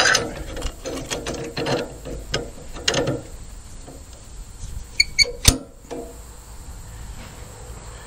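Cam-action log clamps on a Woodland Mills HM126 sawmill being set against the log: metal clicks and scraping, then a few sharp ringing metal clicks and one loud clank about five and a half seconds in.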